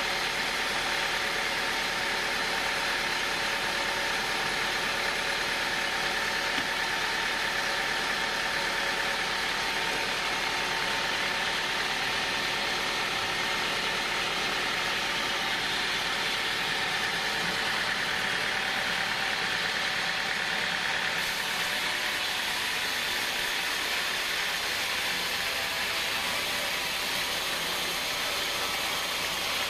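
Band sawmill running steadily, its blade sawing lengthwise through a hardwood log on the rail carriage, a constant machine drone with a hissing cutting noise.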